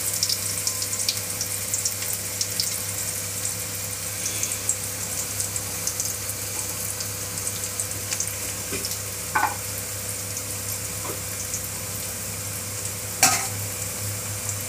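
Parboiled elephant foot yam slices frying in groundnut oil in a steel kadai: a steady sizzle with scattered fine crackles. Two sharp knocks sound over it, one a little past halfway and a louder one near the end.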